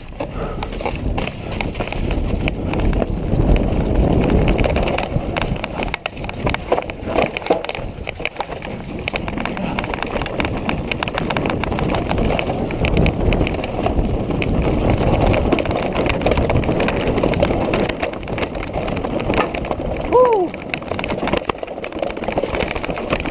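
Orbea downhill mountain bike riding fast over a rocky, leaf-covered trail: tyres crunching over rocks and dry leaves, and the bike rattling and knocking continuously over the bumps. A short falling squeal comes near the end.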